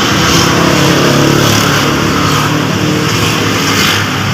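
A vehicle engine running steadily, its pitch sinking over the first two seconds and then holding.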